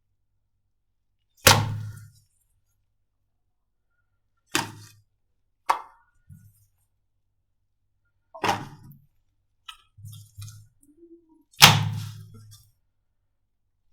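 Five sharp smacks, a few seconds apart, each fading quickly; the first and last are the loudest. Soft small clicks and handling sounds lie between them.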